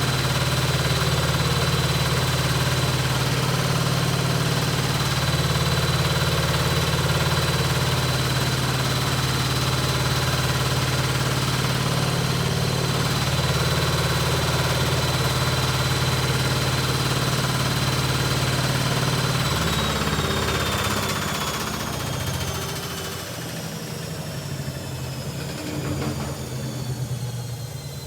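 Hoover Ecologic Computer Washer drum spinning at full speed on a 1300 rpm spin, a steady motor hum with a high whine. About twenty seconds in, the drive cuts and the drum winds down, the whine falling in pitch as it slows.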